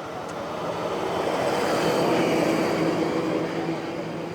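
Riding noise on a Honda CB300R motorcycle: the engine running at a steady speed under rushing wind, swelling to its loudest about two seconds in and then easing off.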